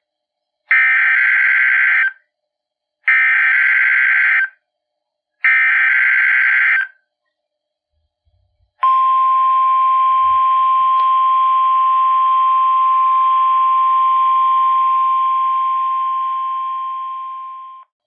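NOAA Weather Radio SAME alert played through the speaker of a Midland HH54VP weather alert radio, for a required weekly test. It is three short bursts of digital data tones, each about a second and a half, then a long steady single-pitch warning alarm tone that fades out near the end.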